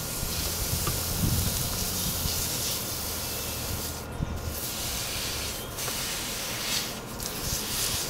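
Nitrogen hissing as it blows out the open end of a freshly brazed copper refrigerant line into a cloth. The line was brazed without a nitrogen purge, so the gas is blowing out oxide flakes. The hiss is steady, with a few brief breaks after the middle.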